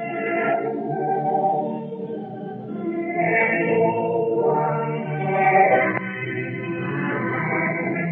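Choral music with sustained, slow-moving chords, received over shortwave radio: thin and band-limited, with no deep bass and nothing above the upper midrange.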